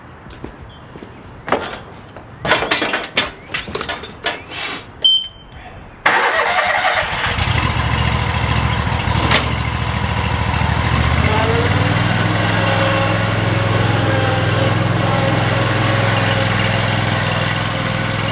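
A few separate knocks and clicks, then the Exmark Lazer Z zero-turn mower's engine comes in suddenly about six seconds in and runs steadily; its low hum grows fuller about five seconds later.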